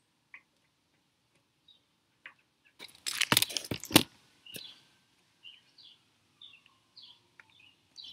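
About three seconds in, a second or so of loud rattling and clunking from hands working a metal folding bicycle pedal onto the crank arm. Faint bird chirps follow.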